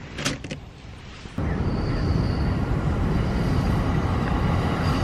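Train passing close by: a loud, steady low rumble that comes in abruptly about a second and a half in.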